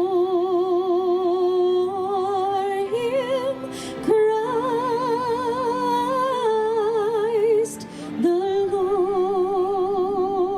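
A woman singing a Christmas carol, holding long notes with a wide vibrato. The notes come in three phrases with short breaks about four and eight seconds in.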